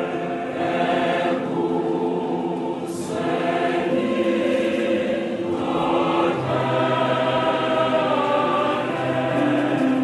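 Choir singing in harmony, with long held notes; a low part comes in about six and a half seconds in.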